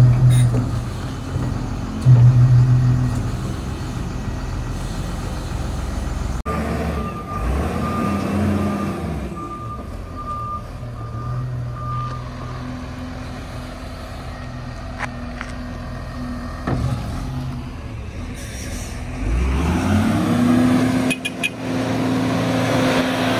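Front-end loader engine running, with a reversing alarm beeping steadily for about six seconds from about six seconds in. Near the end the engine revs up, rising in pitch, then holds at the higher speed.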